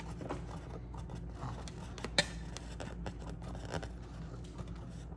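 Scissors scraping and clicking faintly against the rubber skin of a balloon, with one sharp click about two seconds in.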